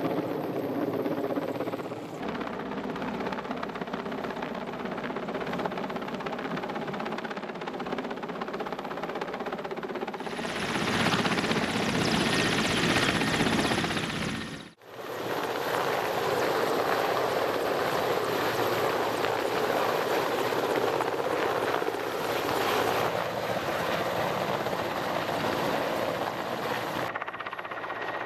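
Mi-8 helicopter's rotors and turbine engines running steadily with a continuous drone and hum. The sound changes abruptly several times; it is loudest and harshest for a few seconds in the middle, with a brief sharp drop just after.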